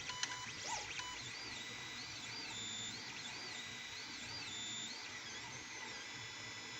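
Tevo Tornado 3D printer's stepper motors whining as the print head moves back and forth, the pitch rising and falling in repeating arcs about twice a second over a steady low hum.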